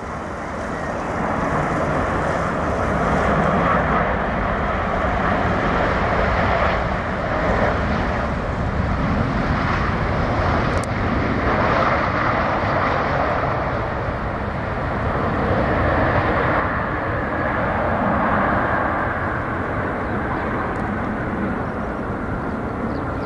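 Loud, steady jet engine roar of a Boeing 747 freighter rolling out along the runway after touchdown. It swells over the first few seconds, then holds.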